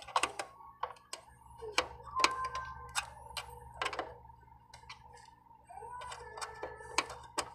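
Light, irregular clicks and taps of a soldering iron tip against the metal terminals of RCA input jacks on an amplifier circuit board, over a faint steady hum.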